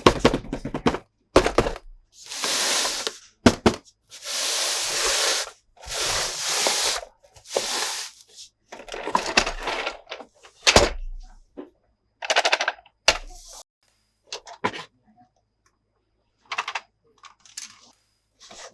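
Plastic toy monster trucks and playset being played with: sharp knocks and clatter between bursts of scraping noise about a second long each.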